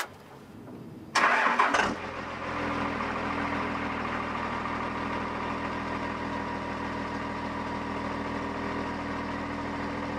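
A 5.9-litre 24-valve Cummins inline-six turbo diesel cranks for about a second, fires with a loud burst, then settles into a steady idle. It is a start after the truck has sat for about two weeks, heard at the tailpipe.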